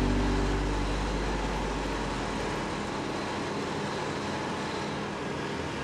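Steady city street traffic noise, with background music fading out over the first couple of seconds.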